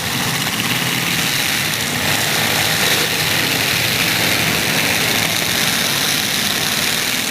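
Demolition derby truck engines running in a steady, loud din, with no distinct crash standing out.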